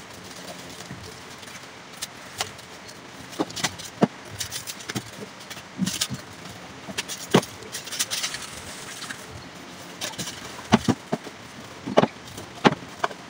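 Irregular clicks, knocks and clatters of shop goods being handled and set out on display shelves, with a few sharper knocks among them.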